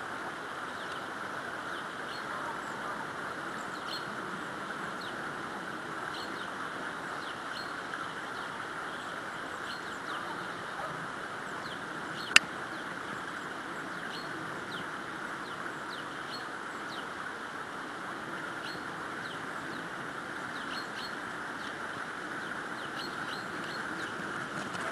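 Steady outdoor background hiss with faint, short bird chirps scattered throughout, and one sharp click about halfway through.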